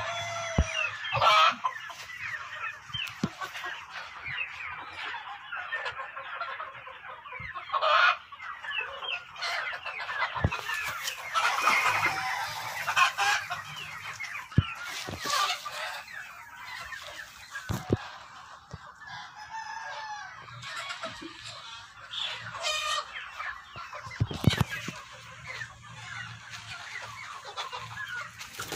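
A flock of desi chickens clucking and calling over one another, with a rooster crowing now and then and a few short sharp knocks scattered through.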